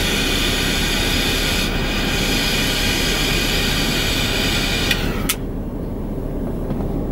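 Butane lighter flame hissing steadily as it is held to a cigar, cut off with a click about five seconds in. A low steady hum runs underneath.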